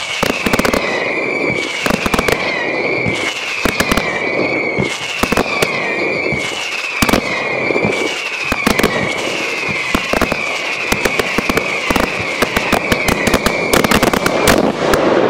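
Fireworks display going off in quick succession: dense bangs and crackling, with a high whistle that dips and repeats about once a second.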